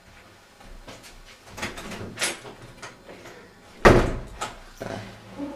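A few knocks and bumps, the loudest a heavy thump just under four seconds in, followed by a couple of smaller knocks.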